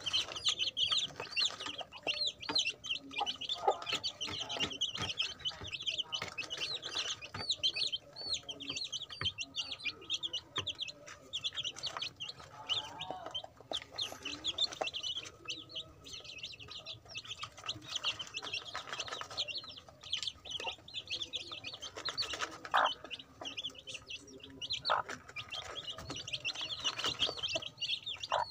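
A brood of young chicks peeping almost constantly, many short high calls overlapping, thinning out for a few seconds at a time before picking up again. Occasional taps sound as they peck at feed in a plastic tray.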